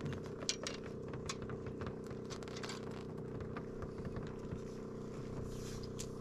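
Boat motor running with a steady hum, while a few light clicks and rattles come from the landing net and tackle as a landed trout is lifted aboard.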